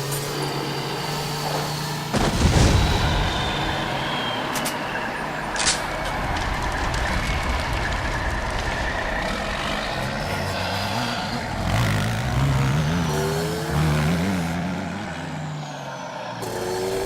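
Re-created movie chase sound effects: heavy truck and car engines running, with a loud hit about two seconds in. The engines rev up and down repeatedly near the end.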